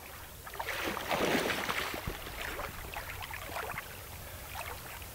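Water splashing and swirling against the side of a boat, loudest about a second in, then lighter lapping.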